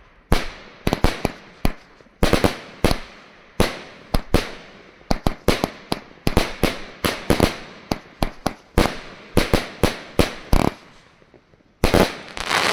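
Pyromax Virus 54-shot firework cake firing its shots in quick succession: sharp bangs about two a second, a short pause, then a dense volley near the end.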